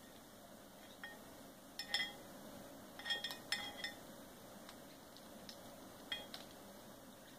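Light, ringing clinks in small clusters as a sun conure pecks at ice in its glass water bowl, beneath a toy hung with small metal bells.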